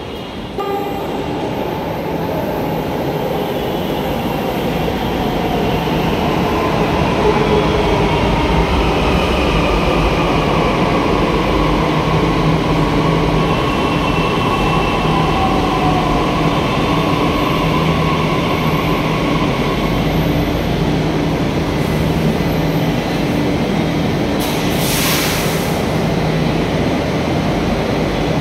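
Delhi Metro train pulling into a platform and braking to a stop, its running noise building over the first several seconds. Electric whines slowly fall in pitch as it slows. There is a short hiss about 25 seconds in.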